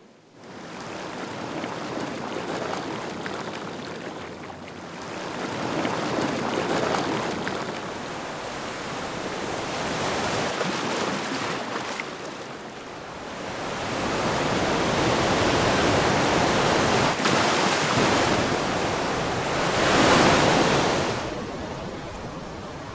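Ocean surf: waves surging over rocks and drawing back, rising and falling in several slow swells. The loudest swell comes near the end, then the sound drops away.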